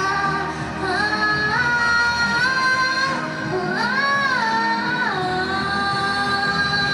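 A young girl singing through a handheld microphone over backing music, with a long held note in the last couple of seconds.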